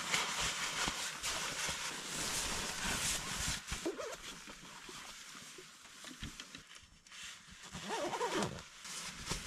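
Clothing and sleeping-bag fabric rustling, heaviest in the first few seconds, with a few short wavering pitched sounds about four and eight seconds in.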